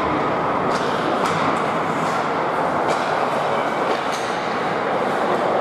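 Steady din of an ice hockey game in a rink, a continuous wash of noise with a few faint sharp clacks scattered through it.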